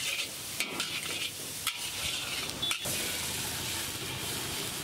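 Green chillies and garlic sizzling in a hot iron wok while a metal ladle stirs and scrapes the pan, with three sharp scrapes about a second apart. Near the end, water poured into the hot wok hisses and bubbles.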